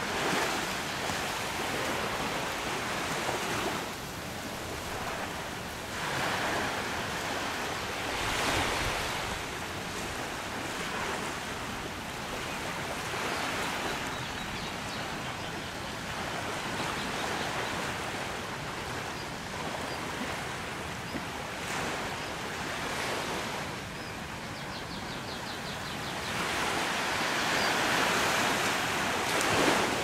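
Small waves breaking and washing up on a sandy beach: a steady rush of surf that swells and fades every few seconds, loudest near the end.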